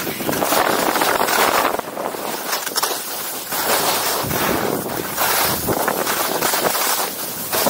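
Skis carving turns down a groomed slope, the edges scraping and hissing over chopped-up snow in swells that rise and fall with each turn, mixed with wind rushing over a helmet-mounted camera's microphone.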